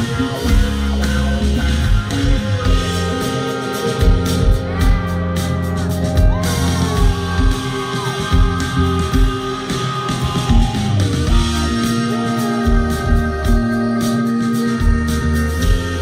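A live band playing a song: a steady kick-drum beat and bass under held keyboard tones, with a singing voice.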